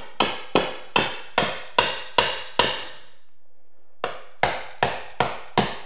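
Claw hammer tapping the end of a luxury vinyl plank to drive it in under a door jamb. Seven quick strikes at about two and a half a second, a pause of over a second, then four more, each with a short ring.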